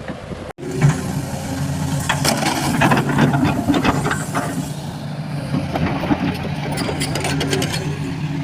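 Heavy machine's engine running steadily, with bursts of sharp knocks and clanks over it.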